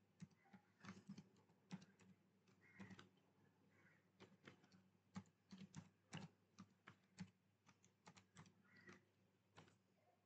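Computer keyboard typing: a run of faint, irregular keystroke clicks.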